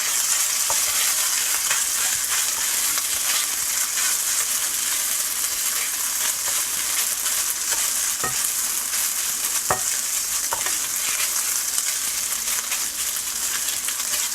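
Fried rice sizzling steadily in hot oil in a pan as it is stir-fried, with a few sharp clicks of the cooking utensil against the pan about two-thirds of the way through.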